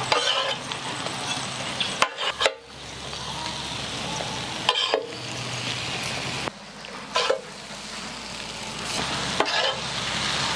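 Vegetable hakka noodles sizzling on a large iron griddle as they are tossed with metal spatulas, the spatulas scraping and clinking against the griddle about half a dozen times.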